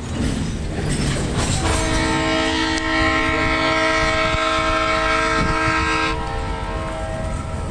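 Leslie RS-3L three-chime air horn on an SD60M diesel locomotive, sounding one long chord that starts about a second and a half in and cuts off near the end. The locomotive's engine and the wheels on the rails rumble underneath.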